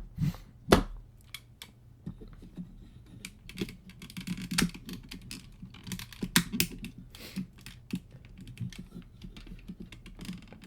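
Hard plastic parts of a Transformers Crossover toy figure clicking and rattling as it is handled and its joints and pieces are moved, with two louder snaps near the start.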